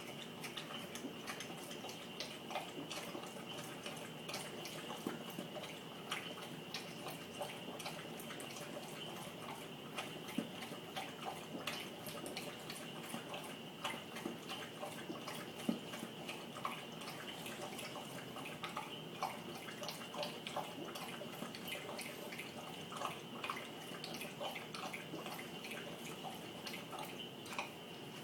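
Victorian bulldog lapping water from a bowl: a long run of quick, irregular wet laps and splashes.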